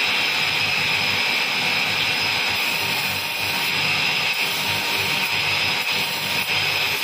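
Double-ended belt grinder running steadily, with bone knife handles pressed against its sanding and polishing belts, giving a continuous grinding hiss.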